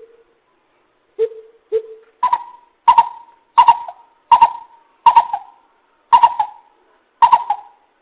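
Greater coucal calling: two soft, low hoots, then a run of louder, higher hoots about two-thirds of a second apart. This is the coucal's territorial call, used as a decoy recording to draw in wild coucals.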